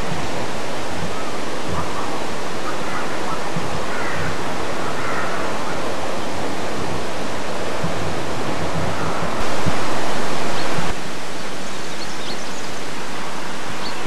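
Loud, steady hiss with no distinct machine or voice in it, stepping louder for about a second and a half around nine seconds in. A few faint chirps can be picked out in the hiss.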